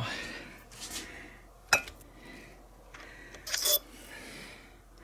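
Steel differential parts clinking against each other and the workbench as they are handled: one sharp clack nearly two seconds in, then a short cluster of clinks that ring briefly about three and a half seconds in.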